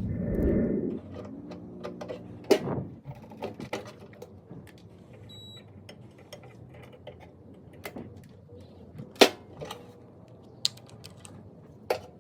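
Scattered clicks, taps and knocks of hand tools and parts being handled during repair work, the loudest about nine seconds in. A low hum sounds in the first second, and a brief faint high beep about five seconds in.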